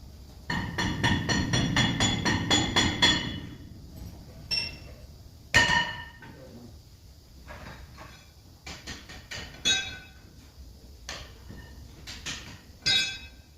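A hammer striking a steel part, each blow ringing: a quick run of about ten blows in the first three seconds, then scattered single blows.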